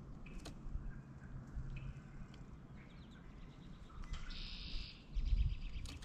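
Wild birds calling and chirping, with a harsh, scratchy call about four seconds in. Low thumps near the end as a blue jay moves about on a platform seed feeder close to the microphone.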